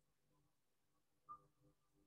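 Near silence: a faint steady low hum, with one brief faint blip about a second and a quarter in.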